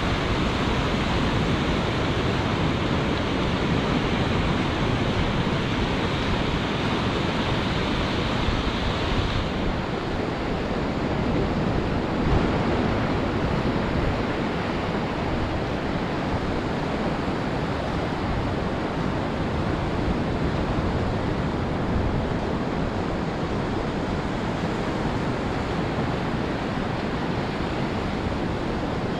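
Ocean surf washing onto the shore in a steady, continuous rush, with wind on the microphone. The higher hiss drops away about nine seconds in.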